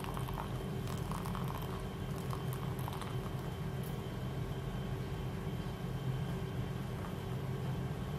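A thin stream of hot water poured from a gooseneck kettle onto coffee grounds in an AeroPress, a faint trickle. A steady low hum runs underneath and is the loudest part.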